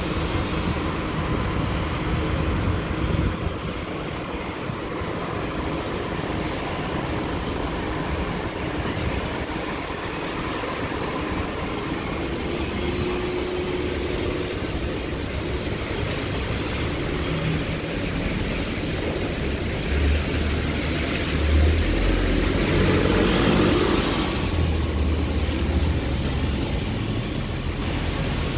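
Double-decker bus engine running and moving off amid steady street traffic noise. The sound swells to a louder rush about three quarters of the way through.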